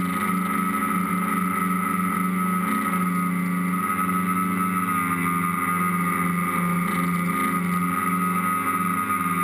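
Tricopter's motors and propellers running with a steady hum and a high whine, heard through the onboard camera. The pitch wavers slightly as it flies low along the ground.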